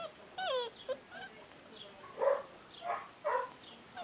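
Old English Sheepdog puppies whining and yipping in high, falling cries, then three short, louder barks in the second half.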